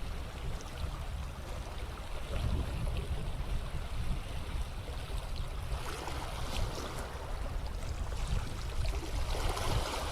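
Sea waves washing against shore rocks, with wind rumbling on the microphone; louder surges of wash come about six seconds in and near the end.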